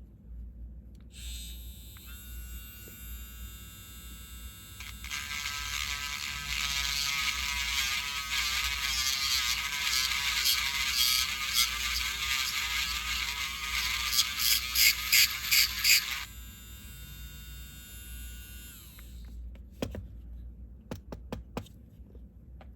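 Small handheld rotary tool with a fitted bit, its motor whining at high speed, then grinding down cured 3D-printing resin. The grinding gets louder with a few short pulses near the end, then the tool switches off and its whine fades away.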